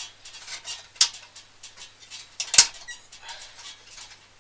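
Hands working plastic PC parts and cables: irregular clicks, taps and rustles, with a sharp click about a second in and a louder knock about halfway through.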